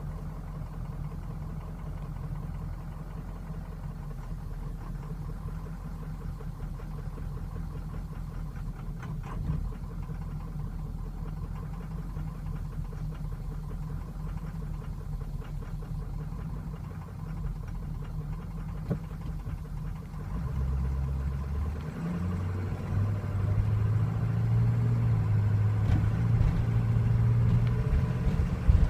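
Ford 6.0L Power Stroke V8 turbo-diesel running at idle with a rough, uneven idle and stumble. From about two-thirds of the way through it gets louder and its pitch shifts up and down unevenly.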